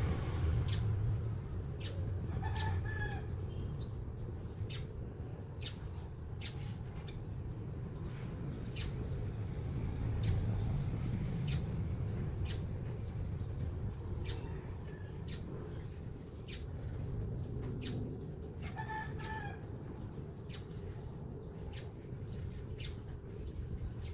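Mechanical pencil lead on drawing paper in short strokes and ticks, over a steady low rumble. A short bird call sounds twice, about three seconds in and again near nineteen seconds.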